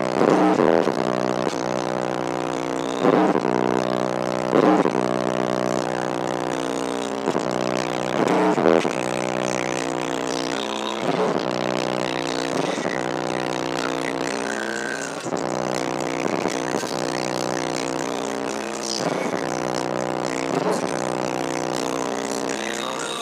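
Bass-heavy music played loudly through a subwoofer system: a sustained bassline that shifts pitch every few seconds, with a beat hitting through it.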